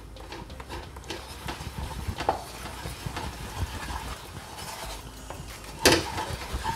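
Paprika powder frying in melted butter in a nonstick frying pan, with a steady sizzle under the scraping and tapping of a wooden spatula as it is stirred. A louder single knock near the end, the spatula striking the pan.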